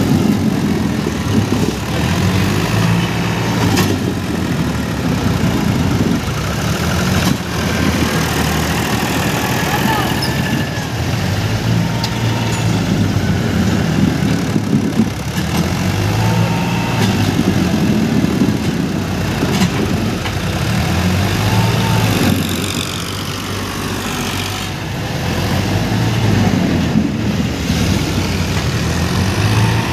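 Powertrac tractor's diesel engine labouring under load, its pitch and loudness swelling and easing again and again as the tractor tries to drag a heavily loaded sugarcane trolley out of loose ground with its rear wheels spinning.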